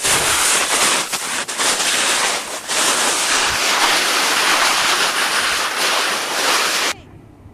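Loud, steady rushing hiss of sliding fast down a snow slope, snow hissing under the board and wind on the microphone; it cuts off abruptly near the end.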